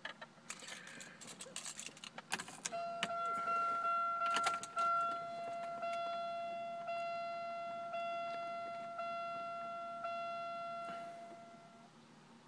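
Car keys jangling and clicking in the first few seconds, then the car's electronic warning chime: one steady tone that re-strikes about once a second for roughly nine seconds before stopping.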